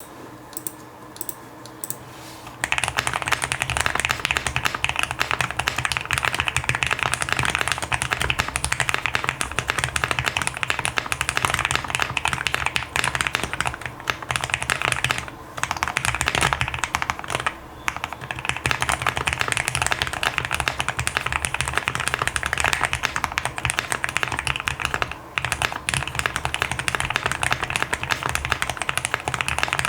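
Typing on a Qwertykeys QK65 mechanical keyboard with lubed and filmed Tealios V2 linear switches on an FR4 plate, with case and plate foam: a few separate keystrokes, then about two and a half seconds in, fast continuous typing with a few brief pauses.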